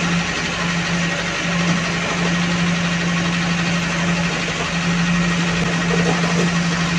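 A vehicle engine idling steadily, a constant hum that holds unchanged throughout.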